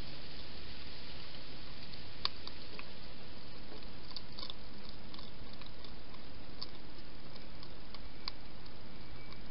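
Wild hedgehog eating, a few sparse sharp crunches and clicks of chewing over a steady background hiss.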